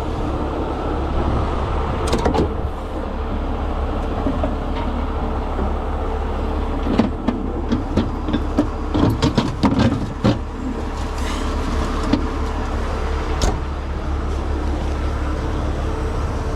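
Heavy tow truck's engine running steadily. A cluster of sharp metallic clanks and knocks comes about seven to ten seconds in, with single knocks near two seconds and thirteen seconds.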